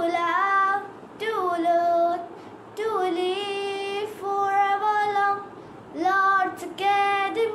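A girl singing a school song solo and unaccompanied: a slow melody of held notes in short phrases, with brief breaths between them.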